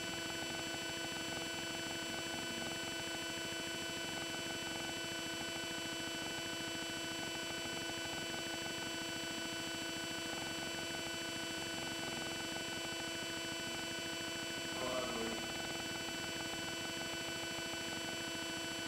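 Steady electrical hum made of several fixed, unchanging tones over a faint hiss. A faint short sound comes about fifteen seconds in.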